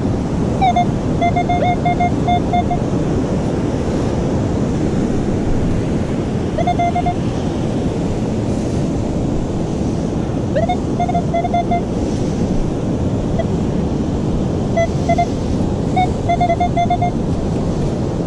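Steady surf and wind noise, with a metal detector sounding quick runs of short beeps in about four bursts as it signals a metal target.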